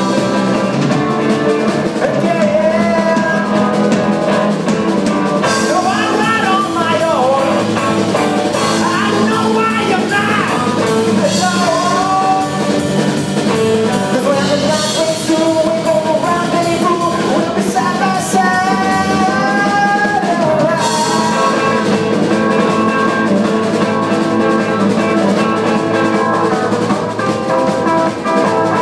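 Live rock band playing loud on electric guitars and drum kit, with a male lead vocal over about the first two-thirds. Then the vocal stops and the guitars and drums carry on instrumentally.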